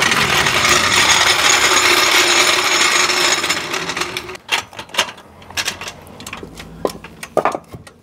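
Steel-wheeled trolley jack being rolled across a concrete driveway: a loud, continuous grinding rattle of its castors for about four seconds, then scattered knocks and clicks as the jack and wheel chocks are set down.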